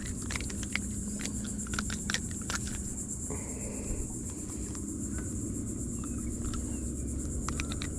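Steady high-pitched insect chorus, with scattered small clicks and knocks and a brief rustle about three seconds in.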